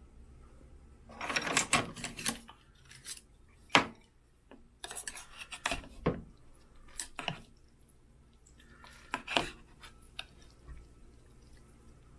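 Wooden chopsticks clinking and scraping against a thin aluminium Korean ramen pot as the noodles are stirred. The clatter comes in several short clusters with pauses between, and the sharpest single click comes a little under four seconds in.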